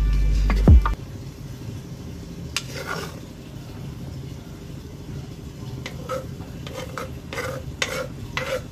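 Background music that stops about a second in, followed by light clinks and taps of a metal utensil against a plate, scattered irregularly through the rest.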